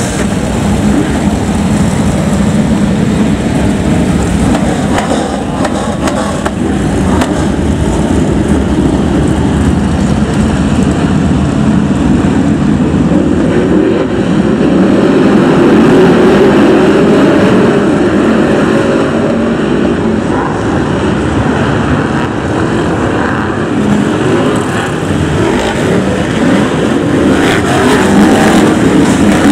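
A pack of BriSCA F1 stock cars racing, their V8 engines running loud and continuous. The noise swells as the pack passes about halfway through and again near the end.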